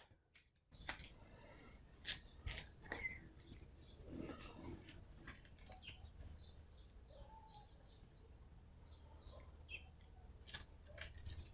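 Near silence in the open air, with a few faint soft clicks and faint bird chirps.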